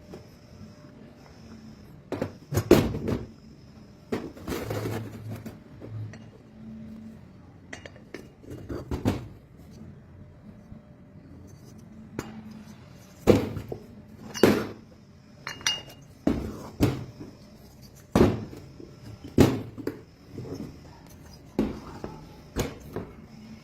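Irregular metal clinks and knocks, a dozen or more spread unevenly, some ringing briefly: hand tools and metal parts being picked up and set down.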